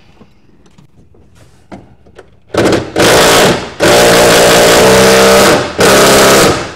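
Cordless impact wrench run in four loud bursts, starting and stopping abruptly, as nuts are zipped onto the bolts that secure the engine. Before the first burst there are only faint handling sounds.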